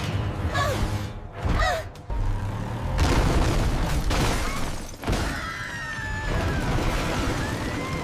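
Cartoon crash sound effects of a wall of toy building blocks smashing down: a loud crash begins about two seconds in and runs for about three seconds of tumbling blocks, over background music.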